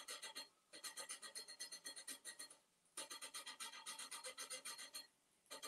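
Faint, fast squeaking in time with hands rubbing decoupage paper in circles onto a flowerpot, about six squeaks a second. It comes in runs with short pauses about half a second in and near three seconds in.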